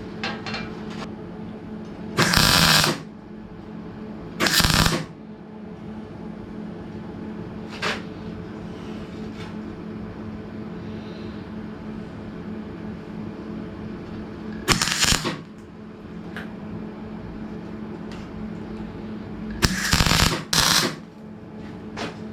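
Short bursts of arc welding crackle as steel sides are tacked in place: five tack welds of under a second each, the last two close together near the end, over a steady hum.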